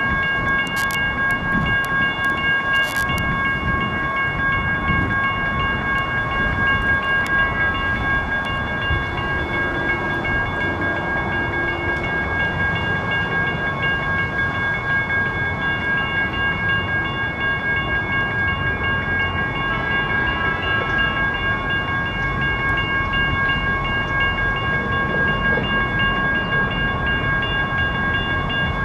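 Railroad crossing bell ringing continuously with a steady rhythmic clang, over a low rumble. The crossing stays activated for a light rail train that is turning around rather than crossing.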